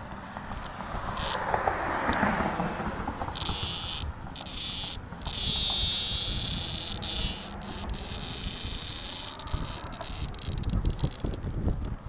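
A periodical cicada held between the fingers buzzing in loud, on-and-off stretches with its wings fluttering: the distress squawk a handled cicada gives. The buzzing starts a few seconds in, is loudest around the middle, and fades near the end.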